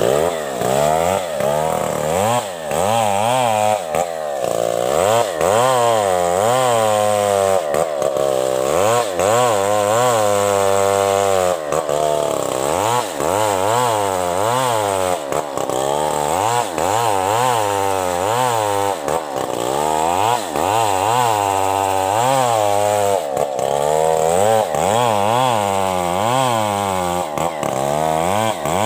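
Large STIHL two-stroke chainsaw ripping lengthwise through a coconut palm trunk, running flat out under load. Its pitch rises and falls over and over as the chain bites and frees in the cut.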